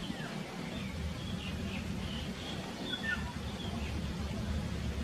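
Outdoor ambience: scattered short bird chirps and calls over a steady low rumble.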